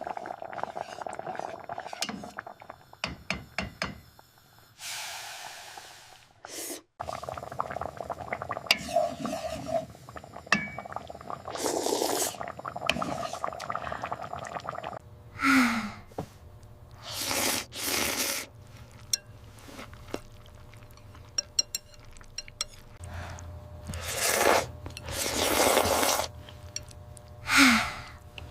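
Kitchen sound effects of dishes, pots and cutlery clinking and clattering as food is prepared, with a short rushing, pour-like noise about five seconds in and several louder swishes later on.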